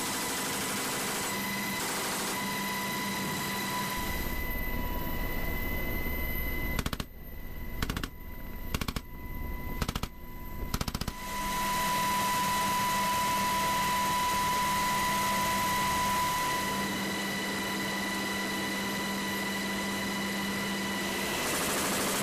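Helicopter cabin noise: a steady turbine whine and rotor din. In the middle, for about four seconds, short bursts of fire from an M240 door-mounted machine gun cut in.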